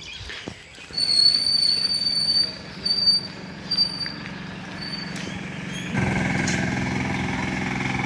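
A motor vehicle's engine running nearby, with a loud high-pitched squeal that comes and goes in four stretches over the first few seconds. The engine grows louder and steadier about six seconds in.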